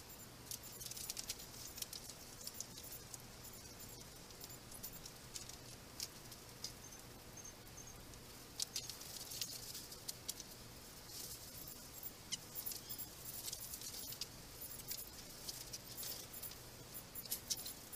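Quiet outdoor ambience in snow, with many faint, scattered high-pitched ticks and clicks.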